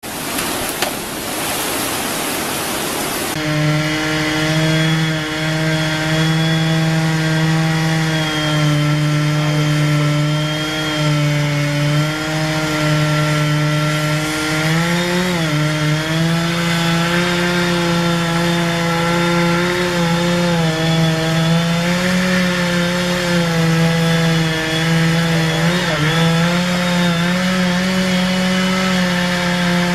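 Chainsaw engine running at steady high revs, held at full throttle while sawing wood, with brief dips in pitch about halfway and again near the end as it takes load. The first few seconds are a rushing noise before the engine's note comes in.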